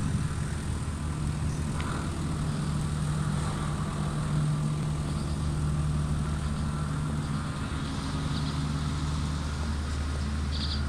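Steady low mechanical hum, even and unchanging, with a couple of short, faint high chirps near the end.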